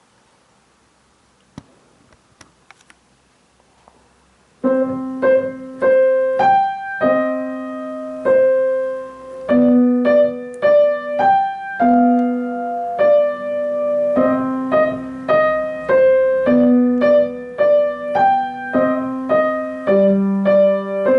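A simple piano piece in a minor key, played hands together with a held bass note under a stepwise melody, its E's flattened. It begins about four and a half seconds in, after a few faint clicks.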